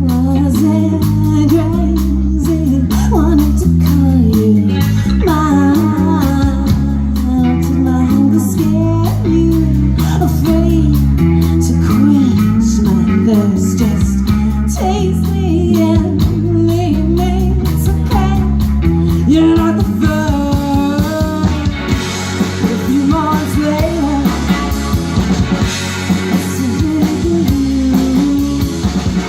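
Rock band playing live: a stepping bass line, electric guitar and drums under a singing voice, with the cymbals growing busier about three quarters of the way through.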